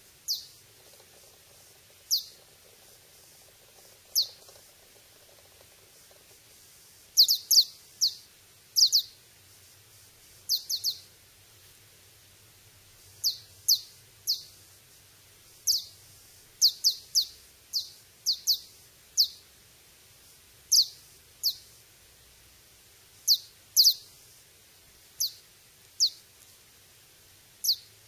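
Repeated short, high-pitched chirps, each falling quickly in pitch, sounding singly or in quick runs of two or three about every one to two seconds.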